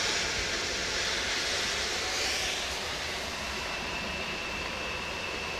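Steady rushing noise, swelling slightly about two seconds in, with a faint high steady whine joining a little past halfway.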